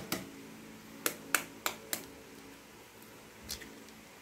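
An egg tapped hard to crack its shell: a run of short, sharp clicks, four in quick succession about a second in, then a lighter one later.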